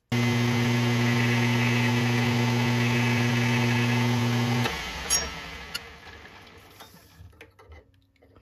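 Atlas lathe running at speed with a steady hum while a cutoff tool takes a light finishing pass on a quarter-inch brass rod. About four and a half seconds in, the lathe is switched off and spins down, with a click as it slows.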